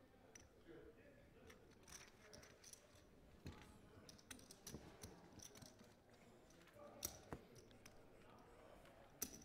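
Faint, irregular clicking of clay poker chips being handled and stacked at the table, with a low murmur of voices behind.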